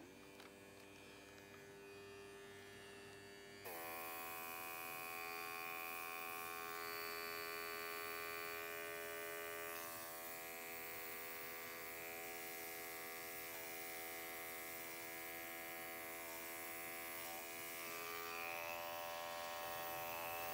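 Small airbrush compressor running with a steady buzzing hum; a little under four seconds in, the airbrush opens and a steady hiss of air joins it, blown across the wet acrylic pour paint in place of a small blower.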